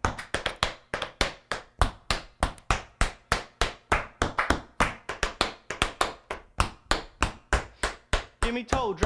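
Tap shoes striking a wooden floor in a rapid, steady rhythm of sharp taps, several a second, as tap-dance warm-up footwork.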